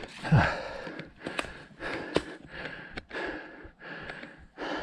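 A hiker breathing hard in quick, even puffs close to the microphone, with a few sharp knocks mixed in.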